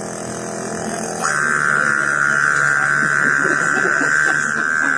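A boy imitating a running generator with his voice: a low buzzing drone, which about a second in jumps to a louder, higher, steady whine.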